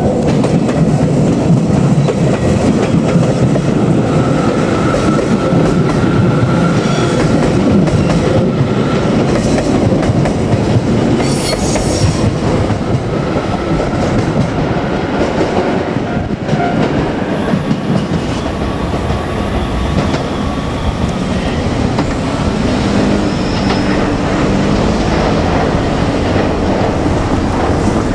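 JR Kyushu 817 series electric multiple unit, two two-car sets coupled, running on the Kagoshima Main Line. Its wheels on the rails make a steady, loud rolling noise throughout.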